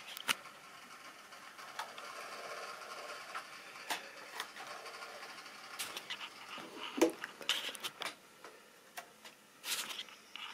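Model railway coaches rolling along the track: a steady light rattle of small wheels on the rails, broken by irregular sharp clicks, the loudest about seven seconds in.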